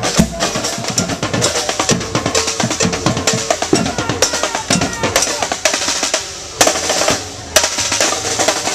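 A group of drummers playing together in a fast, dense rhythm of sharp strokes, with two heavier accent hits near the end.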